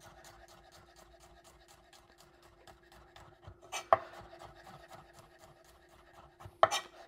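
A chef's knife slicing garlic cloves on a wooden cutting board: light, even taps of the blade on the board, about five a second, with two louder knocks, one about four seconds in and one near the end.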